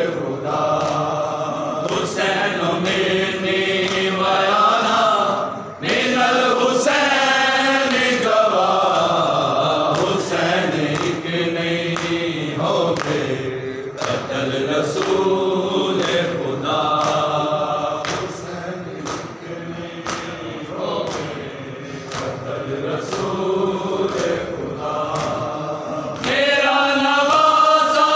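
Men's voices chanting a Shia noha while mourners do matam, open hands slapping their chests in a steady beat a little faster than once a second.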